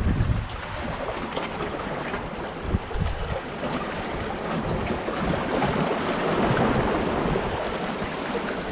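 Sea waves washing and splashing over shoreline rocks, with gusts of wind buffeting the microphone in low rumbles.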